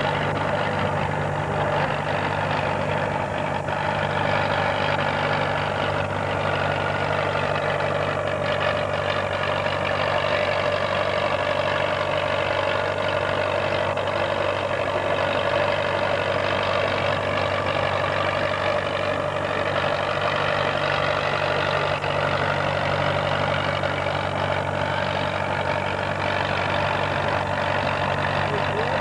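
Antique farm tractor engine running steadily under heavy load as it drags a weight-transfer pulling sled, its pitch holding fairly even with a slight dip and rise midway.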